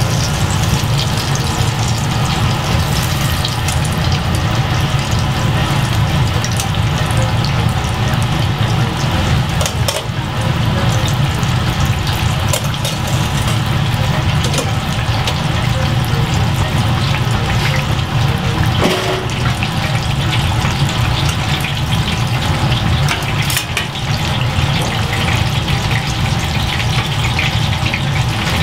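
Large flattened chicken cutlet deep-frying in a wide vat of hot oil: a steady sizzle with fine crackling pops, over a steady low hum.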